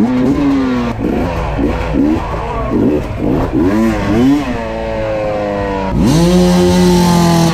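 Hard enduro dirt bike engine revving in short throttle blips, about two a second, its pitch rising and falling with each. About six seconds in it climbs sharply and holds at high revs.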